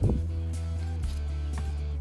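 Background music with a deep bass line; the bass note changes about halfway through.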